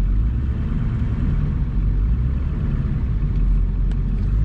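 Steady low rumble of a vehicle rolling slowly with its engine running.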